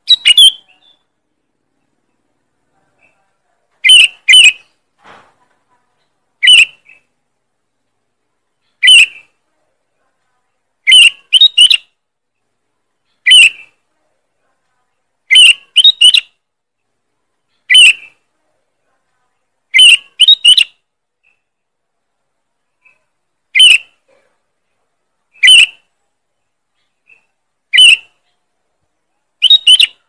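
Sooty-headed bulbul (kutilang) calling: loud, sharp short notes, single or in quick pairs, about every two seconds. This is the call used as a lure (pikat) to draw in wild bulbuls.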